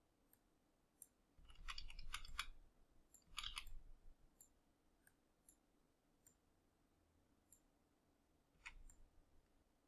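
Faint clicks of a computer mouse and keyboard, in two short clusters about one and a half and three and a half seconds in and once more near the end.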